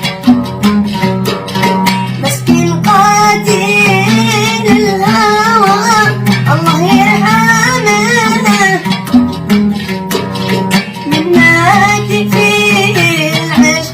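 Yemeni traditional song: a plucked string instrument plays a rhythmic accompaniment alone for the first few seconds, then the son's voice enters singing a long, wavering, ornamented melodic line over it, pausing briefly and coming back in near the end.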